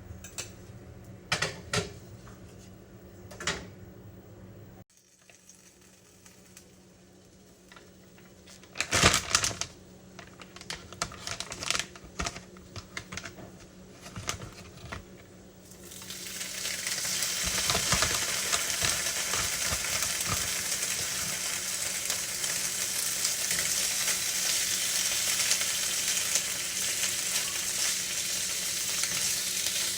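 Scattered clinks and taps of kitchen utensils and dishes, then about halfway through a steady sizzle starts and keeps going: pancake batter frying in a hot pan.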